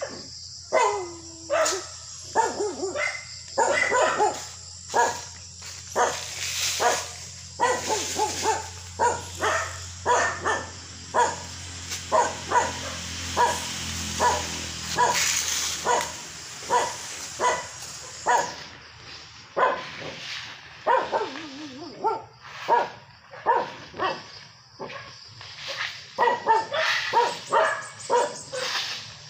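A dog barking repeatedly, about one to two barks a second, over a steady high hiss that stops about two-thirds of the way through.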